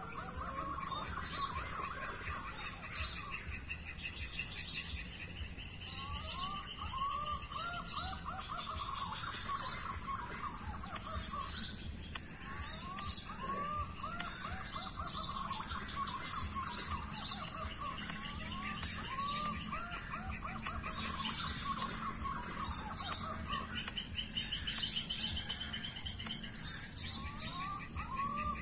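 Wild birds chirping repeatedly with short rising calls over a steady high-pitched drone.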